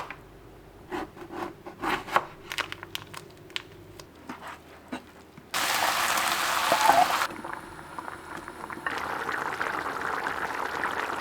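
Kitchen cooking sounds: a few seconds of light crinkling and clicking from ingredients being handled, then abrupt stretches of steady hissing noise. The loudest hissing starts about five seconds in.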